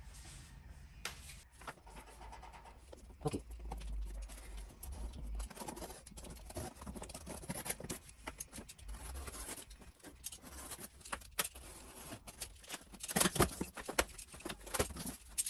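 Packing tape on a cardboard shipping box being slit open, with irregular scraping, scratching and small clicks. Louder cardboard scraping and rustling comes near the end as the cut flap is folded back.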